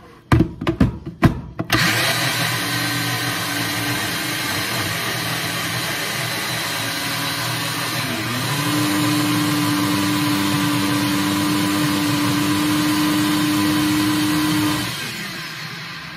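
Magic Bullet personal blender: a few knocks as the cup is pressed onto the base, then the motor runs for about thirteen seconds, churning a thick mix of egg white, avocado, honey and olive oil. About halfway through the pitch briefly dips, then settles into a steadier, slightly louder hum before the motor winds down near the end.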